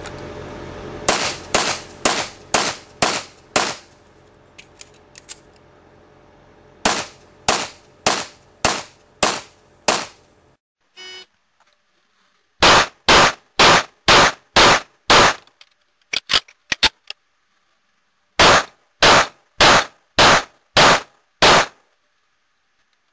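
Pistol fired in fast strings of six shots, about two shots a second: six shots, a short pause with a few light clicks during a magazine reload, then six more. After a break, two more six-shot strings are heard, drier and with dead silence between the shots.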